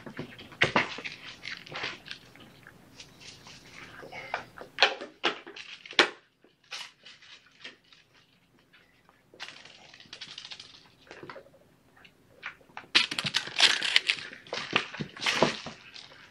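Kittens scampering and tussling on the floor mat: irregular scuffs, scratches and rustles, busiest near the end.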